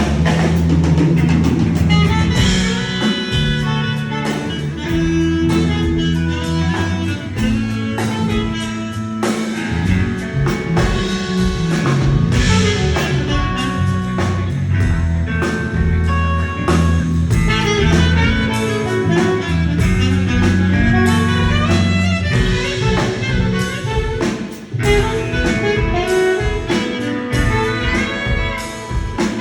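Live band playing a jazzy tune at a sound check: saxophone over drum kit, bass line and guitar, with a brief drop in level about 25 seconds in.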